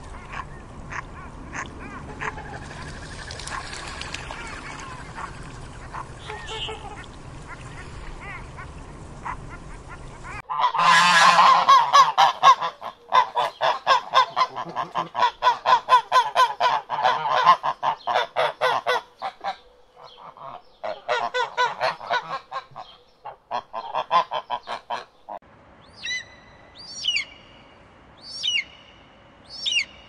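A loud, rapid run of waterfowl honking in several bursts, after a stretch of low steady outdoor background hiss. Near the end come four short, high, downward-sweeping hawk calls.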